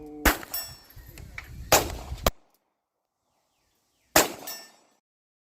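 Three sharp handgun shots: two about a second and a half apart, then a third about two and a half seconds later, each with a short ringing echo.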